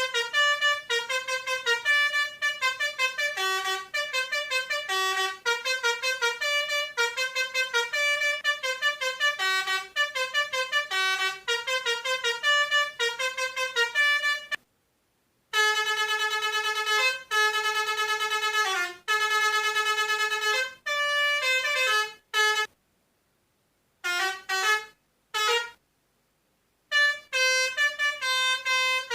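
Toy telolet pianika playing Basuri-style bus-horn tunes: quick runs of horn-like notes for about fifteen seconds, then a few long held chords, then short blasts broken by gaps of silence.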